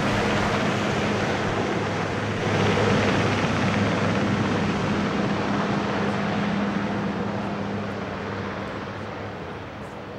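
Marine One, a Sikorsky VH-3D Sea King helicopter, climbing away after lift-off: steady rotor and twin-turbine engine noise that grows fainter through the second half as it gains distance.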